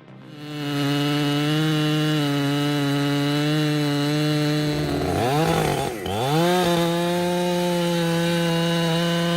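Two-stroke chainsaw running at high revs, starting up loud about half a second in. Its pitch drops sharply a little past halfway, then climbs back and holds steady.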